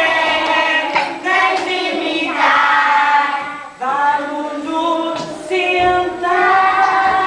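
A group of young children singing together with a woman's voice, in held, pitched phrases with short breaks between them.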